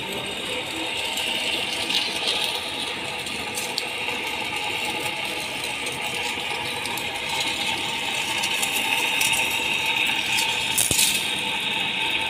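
Large metal lathe boring the inside of a steel screw barrel: a steady metallic rattling cutting noise with a high scraping edge, and a couple of sharp clicks, the loudest near the end.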